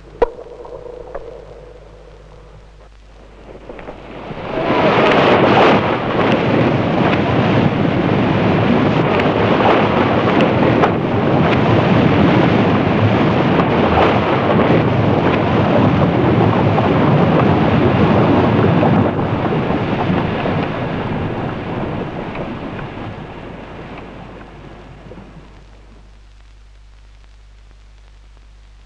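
Snow avalanche rushing down a slope: a loud, even rushing noise that swells in about four seconds in, holds steady, then fades away from about nineteen seconds until it is gone.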